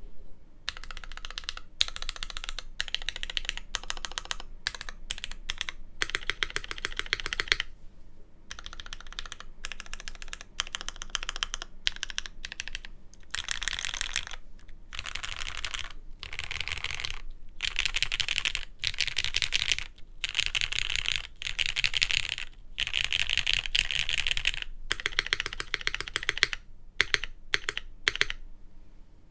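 Typing in bursts on a Velvet Pro mechanical keyboard with linear Cherry MX Black switches on an aluminium plate: a dense run of fast key clacks, with short pauses between bursts.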